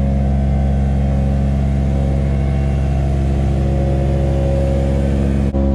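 Carpet steam-cleaning machine running with a loud, steady, unchanging low drone. There is a brief dip near the end.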